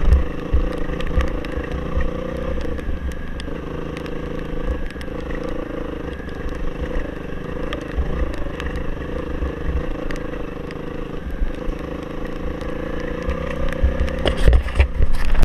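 Off-road motorcycle engine running at fairly steady revs while riding a trail, with low buffeting thumps and clatter from the rough ground; the thumps get louder about a second before the end.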